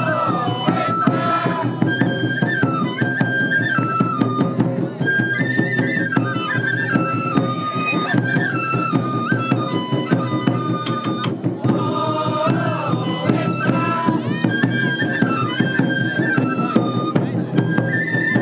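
Japanese shishimai festival music: a bamboo transverse flute playing a stepped, repeating melody over steady taiko drumming.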